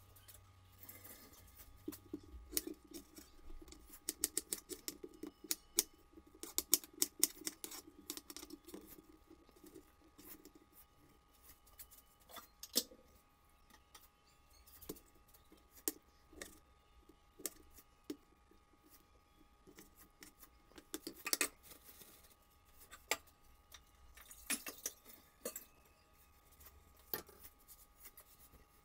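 Scattered light clicks and knocks from ingredients and a knife being handled on a plastic cutting board, with a quick run of rapid clicks a few seconds in. A faint low hum sits under the first third.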